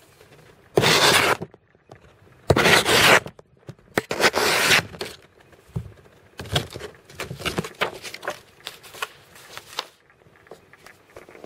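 A VG10 Damascus gyuto chef knife slicing through a sheet of paper three times, each slice a loud scraping rasp about a second long, as a sharpness test. Lighter paper rustling and handling clicks follow.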